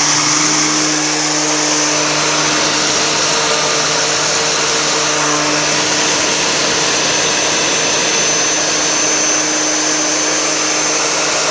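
Oleo-Mac TR 92 E corded electric string trimmer's motor running at a steady full speed with no load, a constant electric-motor hum under a high steady whine.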